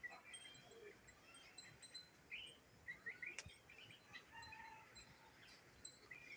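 Faint, scattered high bird chirps over near-silent background.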